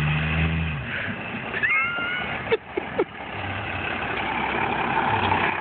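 Steady road-vehicle noise, with a low engine drone in the first second, a short rising squeal about two seconds in, and a couple of sharp clicks just after.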